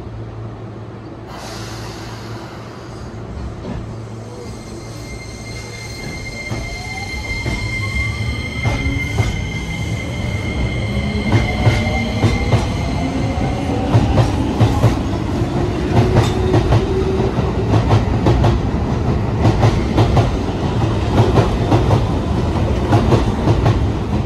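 Keio 8000 series electric train accelerating from a standstill. Its Hitachi hybrid SiC-VVVF inverter gives a set of steady high whining tones that drop out about fourteen seconds in, while the induction motors' lower tones rise in pitch. Wheel clacks over the rail joints come faster and louder as speed builds.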